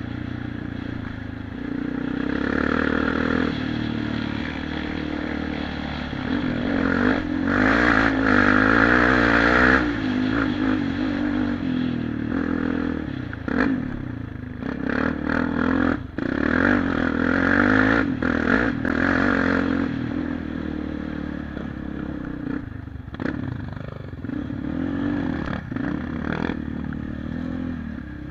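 Suzuki LTZ400 quad's single-cylinder four-stroke engine under way, revving up and easing off several times, with sharp knocks and rattles as it runs over a bumpy gravel track.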